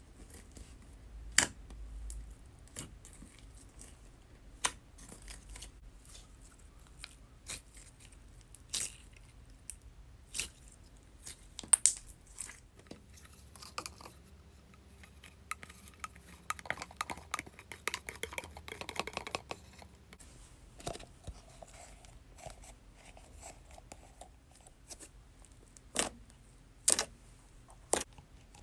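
Tapioca slime being squished and pressed by hand, giving scattered sharp sticky clicks and pops, with a denser run of crackling about two thirds of the way through.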